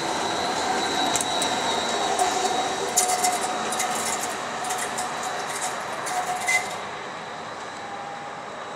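Bombardier Flexity tram running past with a steady high electric whine over rolling noise and a run of sharp clicks. After about seven seconds it drops to quieter, duller street noise.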